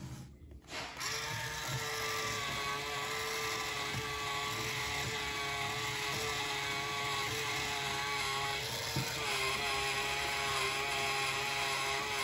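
Small motor of a KiwiCo Eureka Crate build-it-yourself electric pencil sharpener starting up about a second in and then whirring steadily as it sharpens a pencil held down in it.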